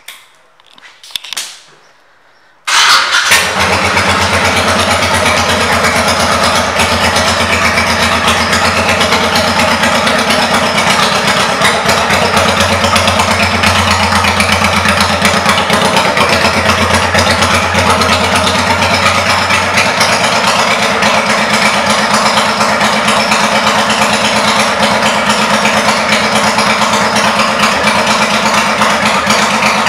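Honda Shadow Sabre's 1100 cc V-twin engine, fitted with aftermarket Cobra exhaust pipes, comes in abruptly about three seconds in and then idles steadily.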